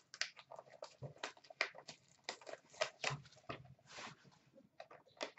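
Cardboard blaster box of hockey cards being torn open and handled, a string of irregular crackles, scrapes and small clicks as the flaps are pulled back and the packs shift inside.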